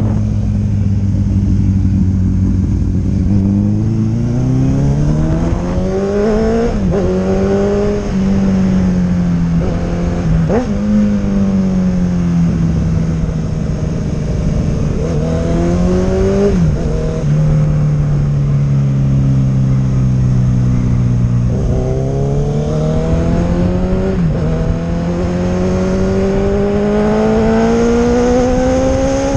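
Honda CB1000R's inline-four engine, fitted with an aftermarket sport exhaust, pulling while under way. Its pitch holds low, then climbs over a few seconds and drops sharply at each gear change, several times over.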